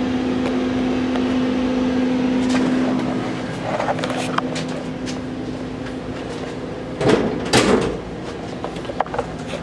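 Steady electrical hum from the passenger car's electrical equipment cabinet, which drops away after about three seconds. It is followed by scattered knocks and a louder clatter about seven seconds in as the stairs are climbed.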